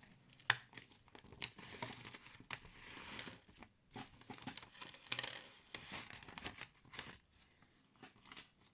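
Sheets of paper rustling and crinkling as a handmade paper wallet is handled and folded, with a few sharp clicks among the rustling.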